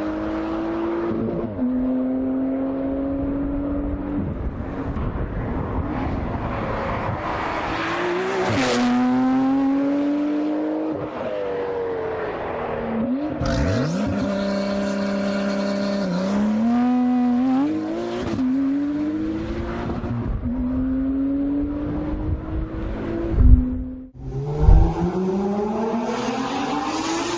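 Porsche 992 Carrera 4S twin-turbo flat-six through a Valvetronic Designs aftermarket exhaust, pulling hard through the gears: the engine note climbs and then drops back at each upshift. Near the end there are two loud bangs, then a different flat-six, a 991 GT3 RS, revs with a climbing, higher-pitched note.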